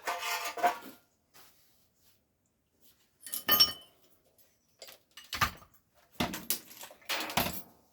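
Metal hand tools clattering and clinking as they are rummaged through and shifted about on a workbench, in about five short bursts with pauses between. One clank about three and a half seconds in rings briefly.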